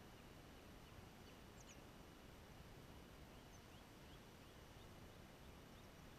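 Near silence: faint outdoor ambience with scattered, faint short bird chirps.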